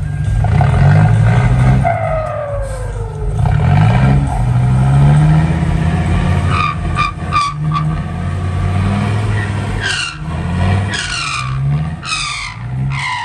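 Loaded six-wheel dump truck's diesel engine revving hard again and again, rising in pitch with each rev, as it tries to drive out of slippery mud. Several falling whistle-like sounds cut across it: a cluster of short ones about seven seconds in and three more near the end.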